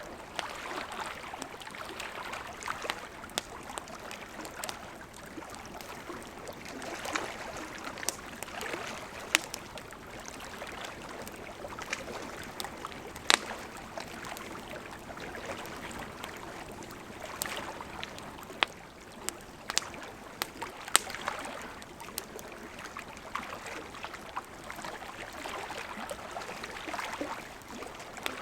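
Small lake waves lapping in soft, repeated swells, with a wood campfire crackling over them in sharp scattered pops, the loudest about thirteen seconds in.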